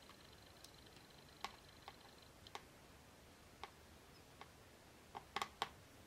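Small sharp clicks and taps of a screwdriver and component leads against the metal screw terminals of a Funway 1 electronic kit board as a capacitor is swapped. Single clicks are spread out, then a quick cluster of them comes near the end.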